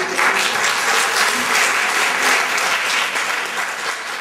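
Audience applauding: dense, steady clapping that begins right after the punchline and starts to fade near the end.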